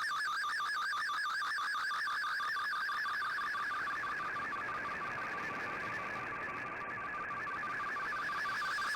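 Slow-scan TV (SSTV) image signal from a shortwave radio: a warbling data tone that repeats evenly several times a second. It fades into hissing static through the middle and comes back strongly near the end.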